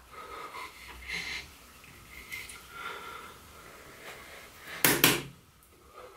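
Makeup products handled on a table: faint small clicks and rustles, then two sharp knocks in quick succession about five seconds in as items are picked up and put down while bronzer is reached for.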